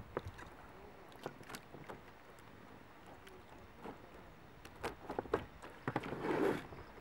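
Handling noises in an inflatable boat as a freshly caught perch is landed and held: scattered sharp clicks and knocks, with a louder rustle about six seconds in.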